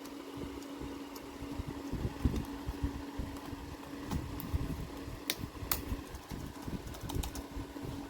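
A few sharp, light plastic clicks from keycaps on a Logitech MX Keys keyboard: two about halfway through and a quick cluster near the end. Under them runs a steady background hum with a low rumble.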